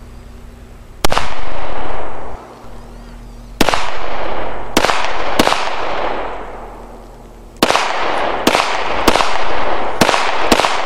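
Nine pistol shots at an uneven pace: one about a second in, three more over the next few seconds, then five quicker shots near the end. Each crack is followed by a long rolling echo.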